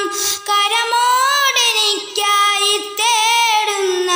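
A boy singing a Malayalam song solo, drawing out long ornamented notes whose pitch bends and wavers, with short breaks between phrases.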